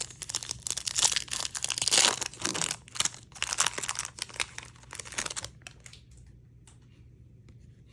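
Wrapper of a Bowman U basketball trading-card pack being torn open and crinkled by hand, a dense crackle that stops about five and a half seconds in, followed by a few faint clicks of the cards being handled.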